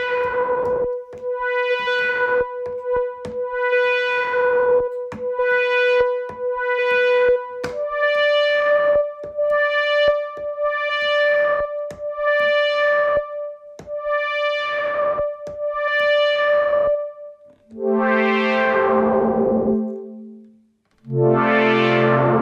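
DSI Tempest synthesizer pad playing a held note that pulses in repeated bright swells, a little under one a second. The note steps up in pitch partway through, and two lower, fuller chords sound near the end.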